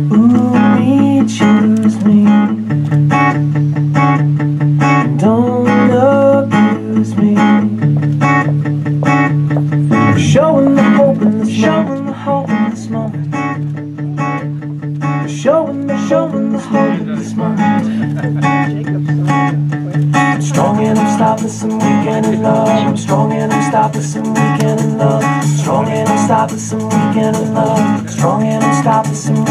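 Acoustic guitar playing an instrumental piece: picked notes over held bass notes.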